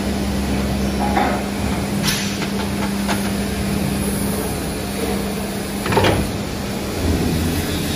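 Hydraulic plate rolling machine running with a steady hum, with a few short metallic knocks, the loudest about six seconds in.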